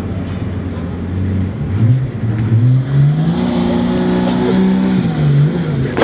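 Maserati MC12 Corsa's 6.0-litre V12 racing engine revved from idle: the pitch climbs over about two seconds, is held high for a couple of seconds, then drops back to a low idle near the end.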